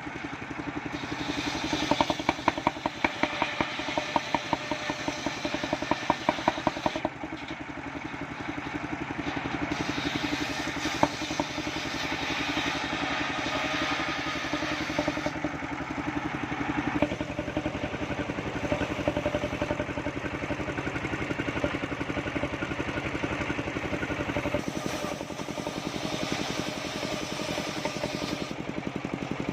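Engine of a mobile circular-saw sawmill running steadily, with a rapid clattering for several seconds near the start.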